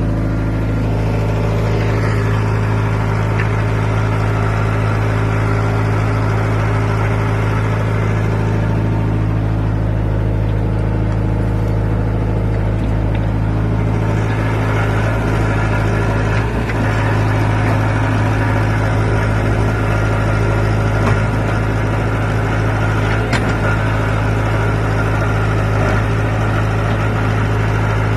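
Backhoe loader's diesel engine running steadily at an even level; about halfway through a higher-pitched whine joins the engine sound and stays.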